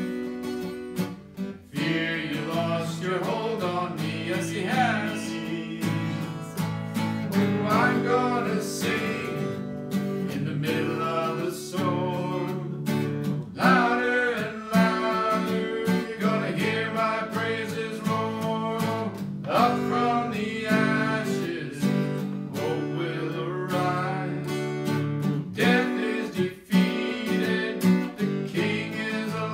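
Acoustic guitar strummed as accompaniment to a worship song, with a man's voice singing over it.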